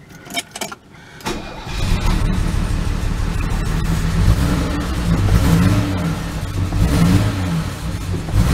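Mercedes W116 280SEL straight-six engine briefly cranked on the starter, catching about a second and a half in, then running with an uneven, pulsing beat. The beat is a misfire on one cylinder that persists with the spark plugs swapped, which the owner puts down to a faulty fuel injector.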